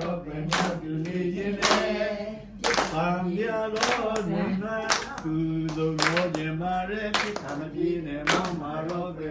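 A man singing a song unaccompanied, with a group of people clapping along on the beat, about once a second.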